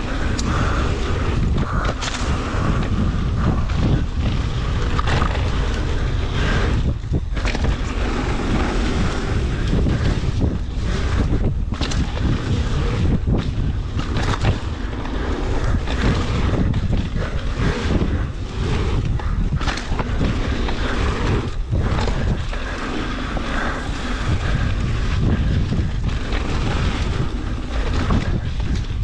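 Wind buffeting an action camera's microphone as a mountain bike descends a dirt trail at speed, with tyres on loose dirt and frequent irregular knocks and rattles from the bike over bumps.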